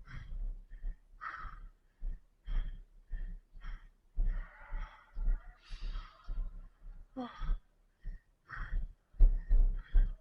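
Rapid, heavy breathing close to the microphone, about a breath every half second, with low thumps on the microphone alongside the breaths.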